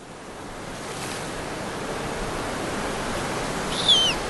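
Ocean surf washing and breaking on a beach, fading in from quiet. Near the end a short high whistle wavers and falls in pitch.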